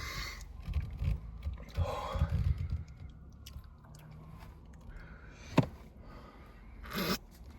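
Eating sounds from a Blizzard challenge: a spoon scraping the ice cream cup, chewing, and low handling thumps. There is a sharp click about five and a half seconds in and a short burst of noise near the end.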